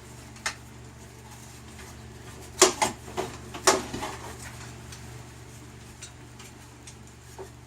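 Light fixture and screws being handled and fitted against the boat's cabin: a handful of sharp knocks and clicks, the loudest in a quick cluster about two and a half to four seconds in, over a steady low hum.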